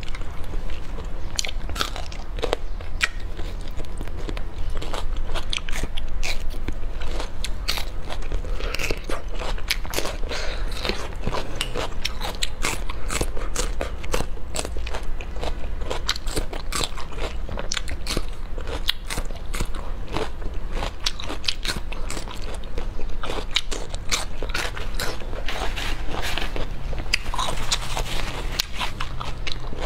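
Close-miked biting and chewing of raw bitter melon rings: a dense, unbroken run of sharp crunches and crackles.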